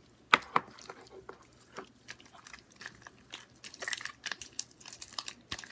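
Hands squeezing and kneading slime, making many irregular wet clicks and small pops, the loudest a little under a second in.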